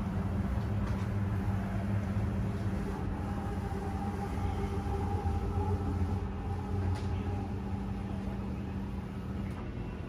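Travel trailer's electric slide-out motor running steadily as the room slide extends, a low mechanical hum heard from inside the trailer. The hum eases off near the end.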